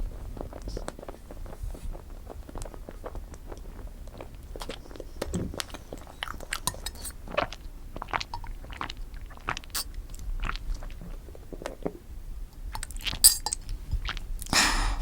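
Close-miked chewing of strawberry cream cake: soft, wet mouth sounds and small bites in quick succession, with a sharp click about 13 seconds in.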